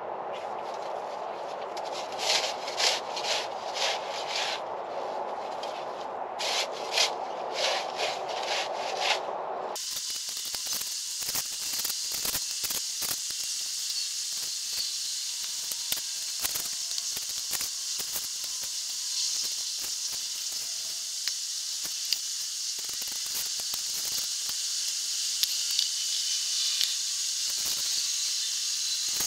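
A hand tool scraping in dirt and gravel, in two runs of rough strokes about two a second. About ten seconds in the sound changes abruptly to a steady high hiss with scattered ticks.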